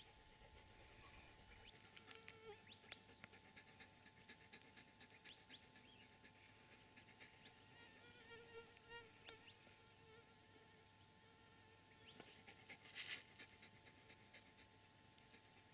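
Near silence: faint outdoor ambience with scattered small clicks and short chirps, and a brief breathy hiss about thirteen seconds in.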